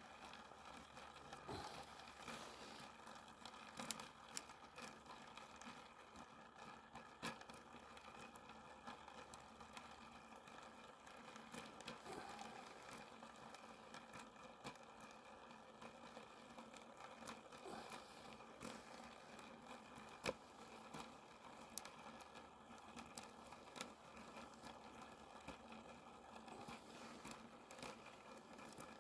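Faint, sporadic crackling and ticking of a small wood fire burning in a Kelly Kettle's fire base, over a low steady hiss.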